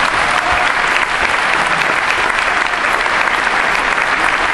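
Large audience applauding, a steady dense clapping that holds throughout.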